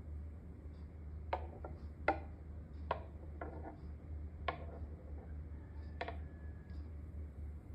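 Espresso machine running with a steady low hum, under about six light clinks and knocks spread over several seconds.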